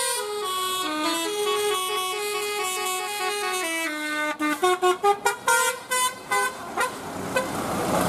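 A coach's telolet musical horn with a Basuri module playing a tune: stepped notes run on for about four seconds, then a run of rapid short staccato notes for about three seconds. Near the end the road noise of the passing bus rises.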